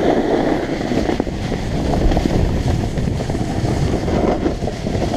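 Wind rushing over the camera microphone while skiing downhill, with skis scraping and chattering on packed snow: a steady, loud rushing noise.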